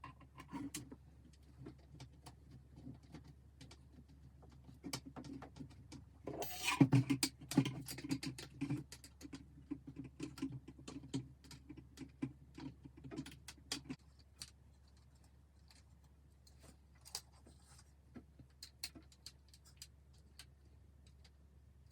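Small screws being driven into plastic model-kit parts by hand, with scattered light clicks, taps and scrapes of handling. The handling is busiest from about six to nine seconds in.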